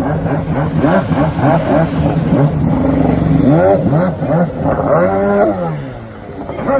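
Stand-up jet ski engine revving hard, its pitch swooping up and down again and again as the rider carves and jumps, dropping away briefly near the end.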